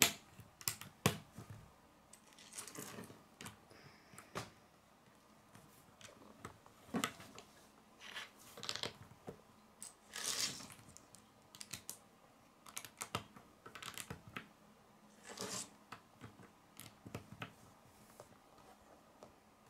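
Plastic Lego bricks being handled and pressed together on a wooden table: scattered light clicks at irregular times, with a few brief rustles.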